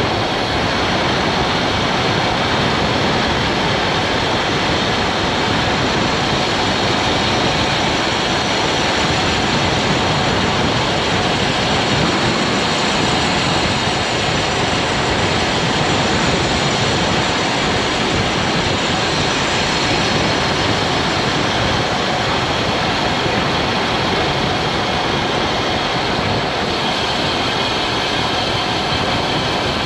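Steady rush of wind on a GoPro Hero 9's microphone from a road bike ride at speed on asphalt.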